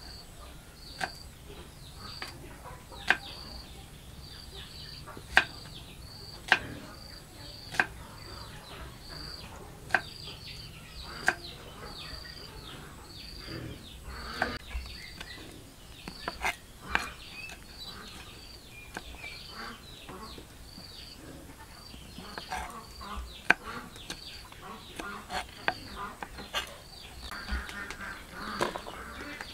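Kitchen knife chopping shallots and chillies on a wooden cutting board: single sharp knocks a second or two apart, coming quicker and more often in the second half.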